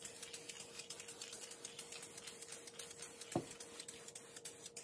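Aerosol spray-paint can spitting in rapid, uneven hissy spurts as it runs nearly empty, with a single knock about three and a half seconds in.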